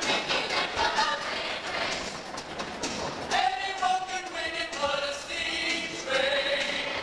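Musical-theatre ensemble singing with musical accompaniment, including several long held notes.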